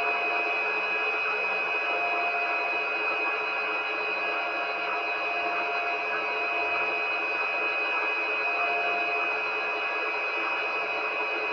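Candy washing machine running, a steady whirring with a constant high-pitched whine and a lower tone that fades in and out every second or two.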